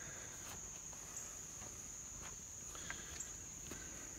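A steady, high-pitched insect trill, with a few faint crackles and pops from a small fire of pine needles and sticks burning in a steel fire can.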